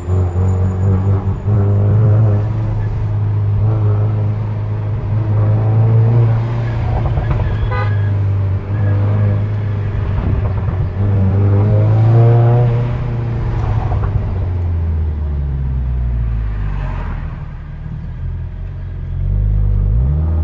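SEAT Leon Cupra engine running steadily, dropping in pitch about three-quarters of the way through, then revving up again near the end.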